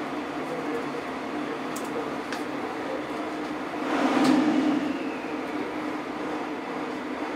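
Diesel engine on a test stand running steadily under laptop control. About four seconds in it briefly gets louder, followed by a faint whine that falls in pitch.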